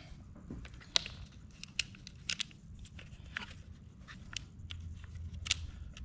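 Scattered small clicks and taps of a nut being handled and set onto a bolt on a Hobie Mirage drive's idler pulley, the sharpest about a second in and near the end, over a faint low hum.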